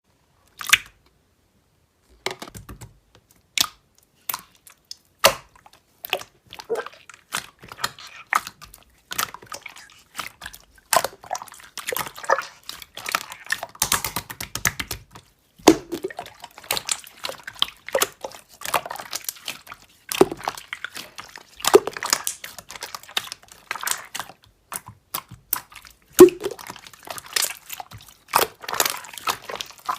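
Slime being squeezed and poked by hand, giving irregular sticky clicks and pops. One pop sounds first, then after a pause of over a second the clicking runs on thickly.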